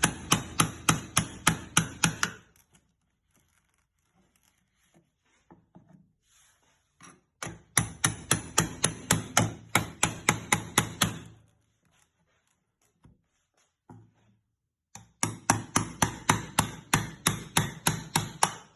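Hammer tapping a mini crowbar wedged under an iron angle bar to pry it off a wooden toolbox. There are three runs of quick, even strikes, about five a second, with pauses of a few seconds between them.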